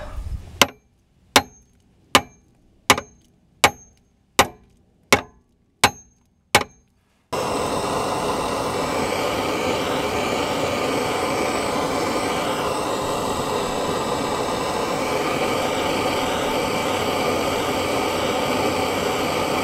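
About nine sharp clicks at an even pace from a handheld gas torch's igniter. About seven seconds in, the torch lights and runs with a steady hiss of burning gas as its flame heats a seized, rusted suspension bushing.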